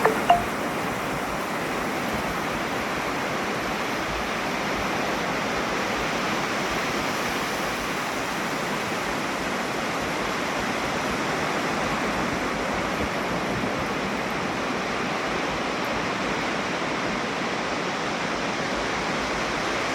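Ocean surf washing steadily, an even rushing noise, with one short click just after the start.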